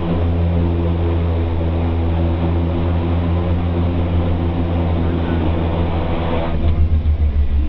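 Twin-turboprop engines and propellers droning in the cockpit on the landing approach: a steady low hum with a stack of even tones. Near the end the drone starts to throb unevenly.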